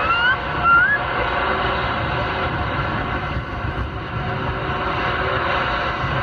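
Uniden 980 SSB CB radio hissing with static over the steady road noise of a car cabin, with a couple of short rising whistles in the first second.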